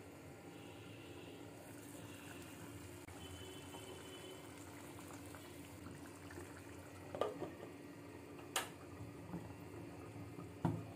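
Egg curry simmering in a pan, a steady soft bubbling hiss, with three short sharp clicks in the second half.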